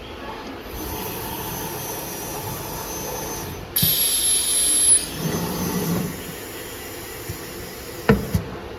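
CNC nesting machine running with steady mechanical noise and hiss. About four seconds in comes a louder hissing burst with a thin high whine for about a second, and near the end two sharp knocks.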